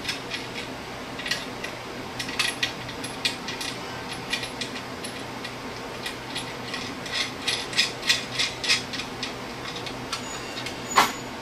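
Small metal clicks and taps as nuts and washers are spun on by hand onto the bolts under a guillotine shear's steel table. The clicks are irregular and come thicker a few seconds before the end, followed by one louder knock just before the end.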